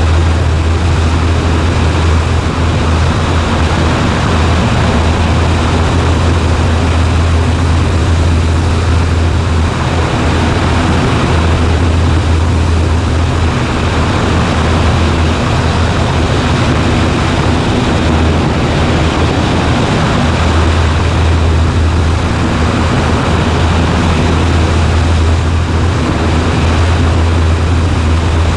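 Cessna 140A's single piston engine and propeller droning steadily in cruise, a constant low-pitched hum.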